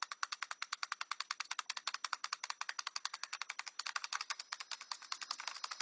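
A parrot tapping rapidly, about ten sharp taps a second in a steady run, which die away near the end.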